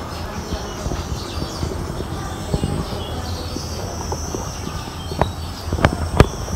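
Several birds chirping and calling, short high notes overlapping. A few sharp taps in the last second and a half.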